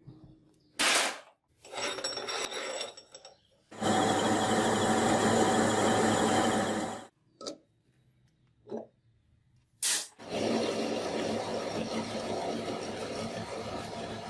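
Workshop power tool working metal in several separate runs: a short sharp burst, a rough rasping stretch, then two steady runs of about three and four seconds, each starting and stopping abruptly.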